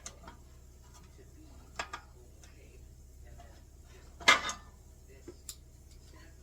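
A few light metallic clinks and knocks from handling sheet-metal seat panels and clecos. The loudest comes about four seconds in and rings briefly.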